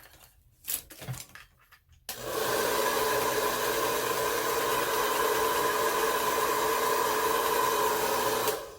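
Handheld hair dryer switched on about two seconds in, blowing steadily with a motor whine, then switched off near the end. A few faint handling clicks come before it starts.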